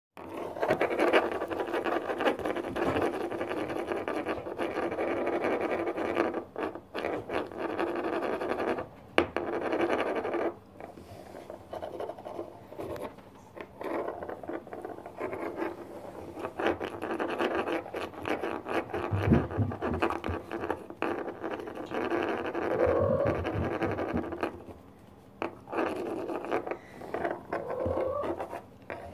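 Kittens' paws and claws scratching and scrabbling close to the microphone on a wooden floor and at the camera, a rough scratching and rubbing with many small taps and a few dull thumps a little past the middle.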